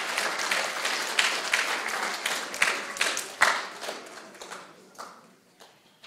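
Audience applause, thinning out about four seconds in and dying away to a few scattered claps.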